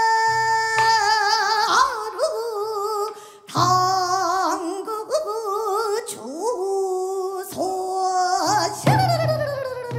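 Korean traditional gugak music: a single high melody line with wide vibrato, held notes and slides between pitches, ending in a long downward slide. Under it a low sustained accompaniment comes in and out.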